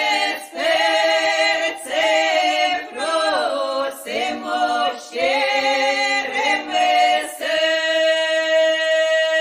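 Unaccompanied choir singing a Ukrainian folk song in close harmony, in short phrases, settling about seven seconds in on one long held chord.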